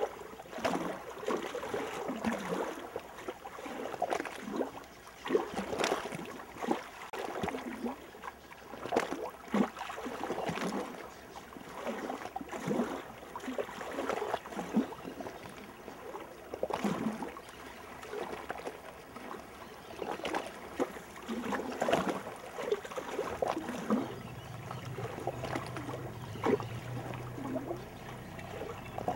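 Small lake waves lapping and splashing, with frequent irregular short splashes. A low steady hum joins near the end.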